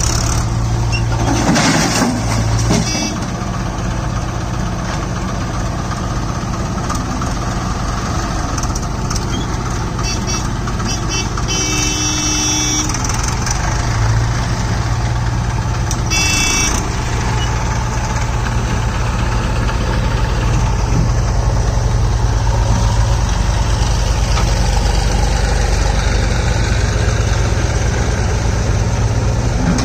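Diesel engines running steadily: a Mahindra 555 DI tractor idling alongside a working JCB backhoe loader. A few short higher-pitched sounds come partway through, and the engine sound grows a little louder in the second half.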